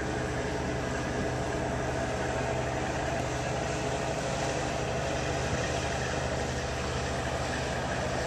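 Steady low hum of the Carnival Splendor cruise ship's machinery, with an even rushing noise of wind and water over it.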